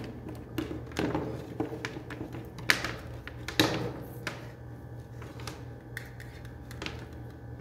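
Handling noise of a trouble light's plastic bulb socket and flat white cord being picked up and dragged across a wooden workbench: scattered light clicks and knocks, with two sharper knocks a little under a second apart near the middle.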